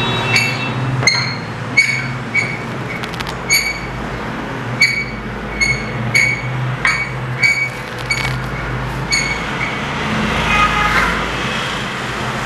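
Long threaded knob rod being screwed by hand through a steel clamp bar, giving short, ringing metallic squeaks about once or twice a second that stop around nine seconds in, followed by a brief scraping handling noise near the end.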